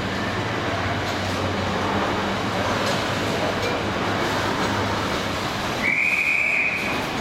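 Container wagons of a freight train rolling past at speed, a steady rumble and rattle of wheels on track. Near the end a single high squeal sounds for about a second.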